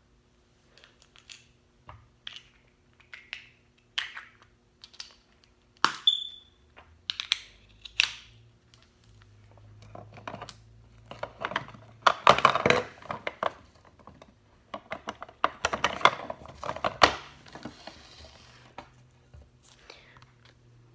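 Small plastic toy accessories being handled, with a string of light clicks and taps, then two louder spells of crinkling, tearing plastic packaging about eleven and fifteen seconds in.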